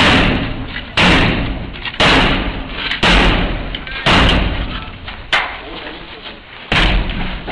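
Heavy bangs on a steel shipping-container door, about one a second, each booming and ringing out before the next. The door is being forced open during a breaching drill.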